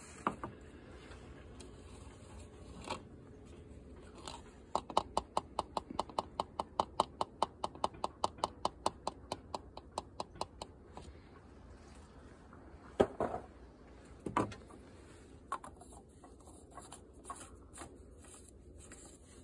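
Light plastic clicks and knocks from handling an oil funnel and screwing the oil filler cap back onto the engine's filler neck. A steady run of quick ticks, about five a second, lasts some six seconds in the middle. It is followed by two sharper knocks and then a few scattered clicks as the cap goes on.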